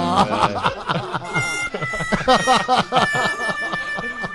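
Several men laughing together in quick chuckles that fade toward the end.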